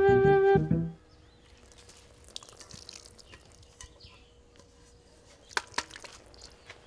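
A few notes of flute-like music end about a second in; then faint dripping of thin tapioca running off a man's head and face, with two sharp clicks near the end.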